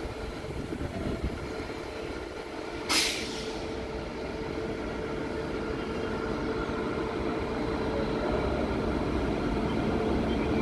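WAP-7 electric locomotive hauling its train slowly out of the station, its running noise and a steady hum growing louder as it draws closer. A brief sharp hiss cuts in about three seconds in.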